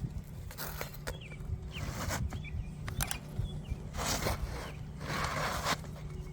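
Outdoor noise: a steady low rumble with several bursts of rustling or scuffing, and a few short bird chirps.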